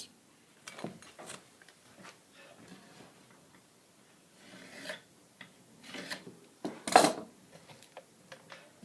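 Scattered handling noises: rubbing and light knocks, with a louder clunk about seven seconds in. The jigsaw is not running.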